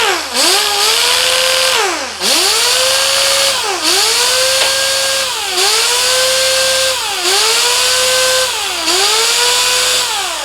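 Pneumatic orbital sander running on compressed air, triggered in about six short bursts: its whine sags and climbs back each time, over a loud hiss of exhaust air. It has been freshly cleaned with carburettor cleaner and oiled, and now starts without binding.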